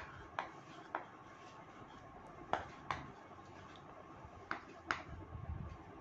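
Chalk writing on a chalkboard: a series of sharp, irregular taps as the chalk strikes the board, some coming in quick pairs.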